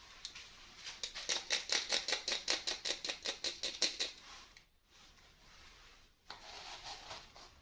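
Toy packaging being opened by hand: a quick run of scratchy clicks, about seven a second, for some three seconds, then a fainter rustle near the end.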